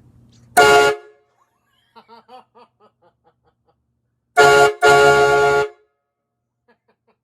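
Air-powered train horn, running off its freshly pressurized air system, being sounded for its first test. It gives three loud blasts, each a chord of several steady tones: one short blast about half a second in, then two more close together a few seconds later, the last one held for about a second.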